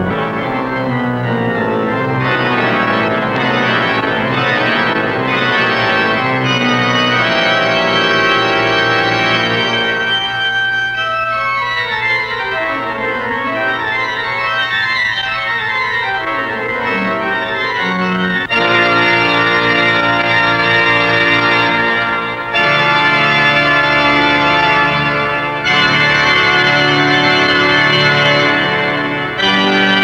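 Organ music. It plays quick runs of notes for the first half. Then louder held chords follow, changing every few seconds, with short breaks between them.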